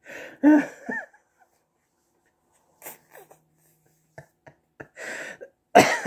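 A man laughing in short, breathy bursts with silent pauses between them, loudest at the start and just before the end.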